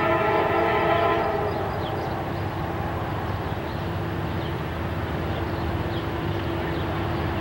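Approaching Norfolk Southern freight locomotive sounding its air horn: one chord of several notes lasting about a second. After it comes the low, steady rumble of the oncoming intermodal train, with a single steady tone held over it.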